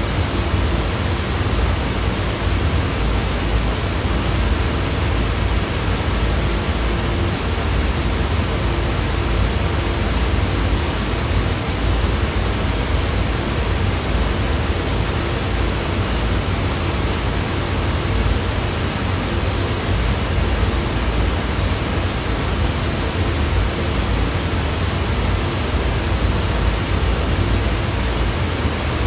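White noise: a steady, unchanging hiss, even in level throughout.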